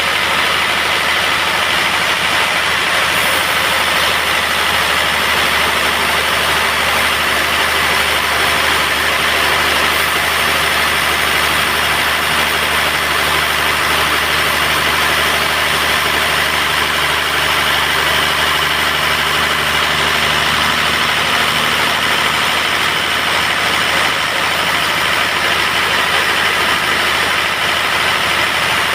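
Band sawmill running steadily, a constant mechanical sound with no breaks.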